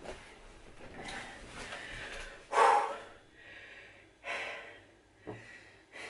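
A man's loud, short breaths and snorts close to the microphone: a strong one about two and a half seconds in, then two weaker ones.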